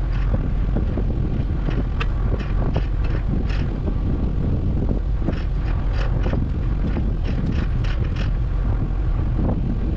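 A vehicle or machine engine running with a steady low rumble, with irregular rattling clicks and clanks over it.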